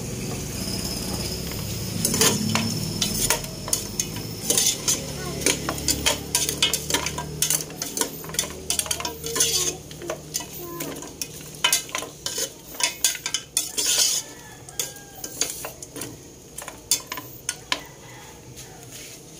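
A metal spatula scraping and clinking against a stainless pressure cooker pot as pork ribs, onion and tomato are stirred, over a light sizzle. The clinks come thick and fast for most of the stretch, then thin out near the end.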